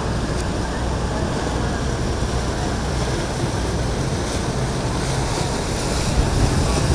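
Steady rush of water and wind with a boat engine running underneath as a low, even drone.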